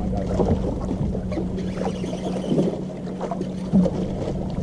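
Wind buffeting the microphone and small waves lapping against a bass boat's hull, under a steady low hum.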